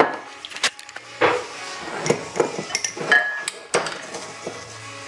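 Glassware being handled on a kitchen counter: a wire-clasp glass jar being opened, with a series of sharp clinks and knocks and one brief ringing glass note a little past three seconds in.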